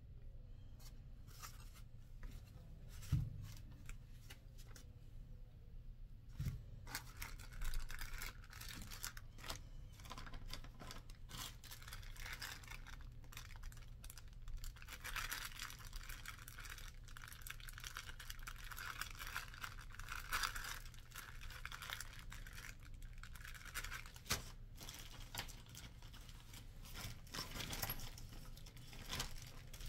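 Clear plastic parts bag crinkling and rustling as it is handled and opened. Two dull knocks come in the first few seconds, and a low steady hum runs underneath.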